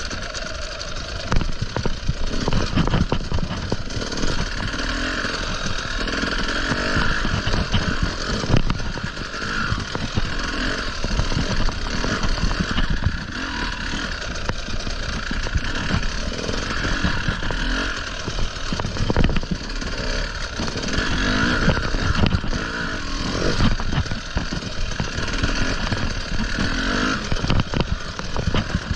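Enduro motorcycle engine revving up and down as it rides a rough forest trail, with frequent short knocks and clatter.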